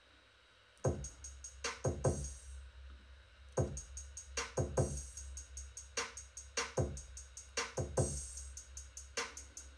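Electronic drum pattern from Maschine 2's Air Bag drum kit played back in Logic Pro X. It starts about a second in with deep kicks that drop in pitch, quick closed hi-hat ticks and occasional open hi-hats.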